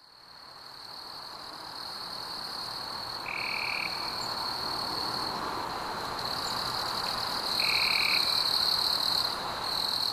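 Night-time frog and insect chorus fading in: a steady high trill throughout over a wash of background noise, with two short calls about three and eight seconds in.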